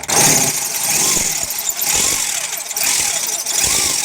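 Handheld electric drill boring into a broken, rusted steel bolt with a freshly reground bit, its motor whine wavering up and down in pitch as the bit bites and loads.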